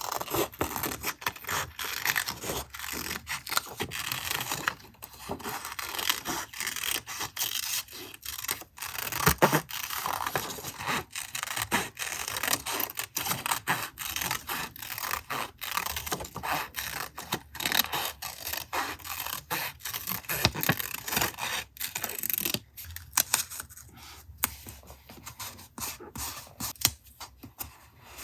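Paper and craft supplies being handled for a collage journal: a busy run of scratchy scraping and rubbing sounds with many small taps and clicks, thinning out and growing quieter near the end.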